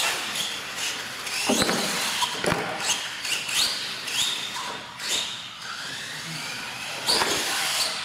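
Electric motor of an R/C monster truck whining, its pitch rising and falling with the throttle, with one long rising whine in the second half. A few short knocks from the truck's wheels and chassis hitting the floor and ramps come in between.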